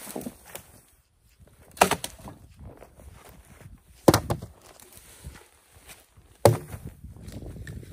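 Dead wood being broken and tossed down while gathering firewood in snow: three sharp cracks, a little over two seconds apart, with quieter rustling between.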